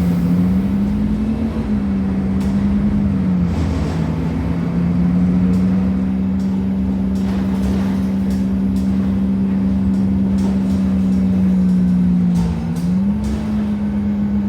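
Temsa Avenue LF bus, with its DAF Euro 5 engine and ZF gearbox, running under way with a strong low hum. The hum steps up in pitch briefly about a second and a half in, drops back, then steps up again near the end. This hum is the strange sound the bus is known for.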